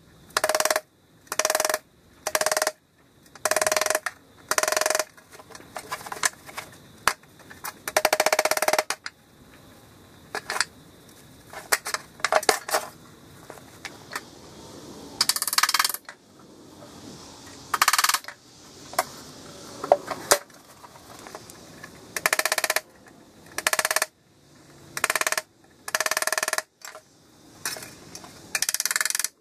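Soft-faced mallet beating the sheet-steel edge of a 1959 Bolens garden tractor hood over a wooden block, in short bursts of quick blows that ring. The bursts come about once a second at first, then at uneven intervals with pauses between.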